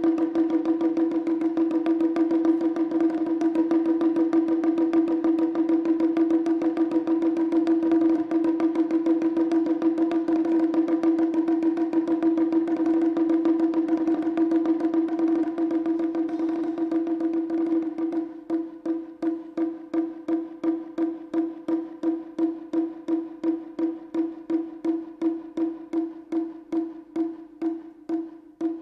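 Taiko drum played in a fast, even roll that gives a steady ringing pitch; about eighteen seconds in the roll breaks into separate strokes, about four a second.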